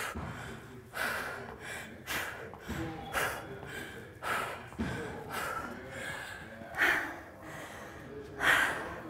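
A woman breathing hard from exertion during spider plank reps, with sharp exhalations about once a second. The loudest two come near the end.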